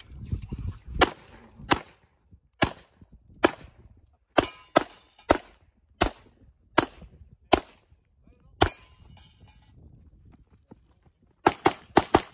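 About fifteen 9mm shots from a Tanfoglio Stock 2 pistol, fired as a competitor runs an IPSC stage: a steady string of shots roughly every second, a gap of about three seconds, then four fast shots near the end.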